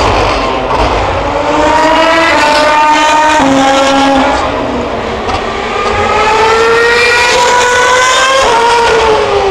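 Formula One cars' 2.4-litre V8 engines at high revs. The pitch climbs through the gears with brief drops at the upshifts, then falls near the end.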